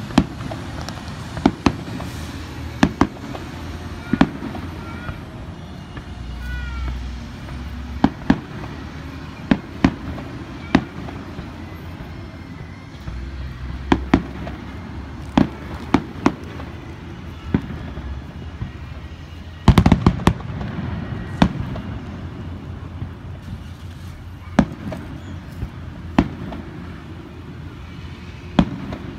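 Aerial fireworks shells bursting: a string of sharp booms, single or in quick pairs every second or two, with a denser volley about twenty seconds in.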